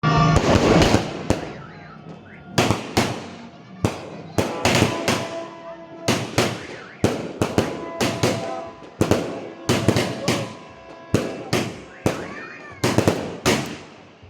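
Multi-shot fireworks cake, Dragon Fireworks' 128-shot Knights of the Templar, firing shot after shot: sharp bangs at about two a second, each trailing off in a fading tail.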